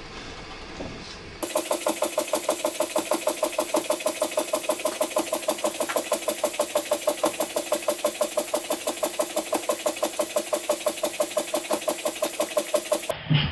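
Small brass vertical-boiler toy steam engine running in steam, with a steady, rapid beat of about five exhaust puffs a second. It is preceded by a second or so of a larger model vertical steam engine running quietly.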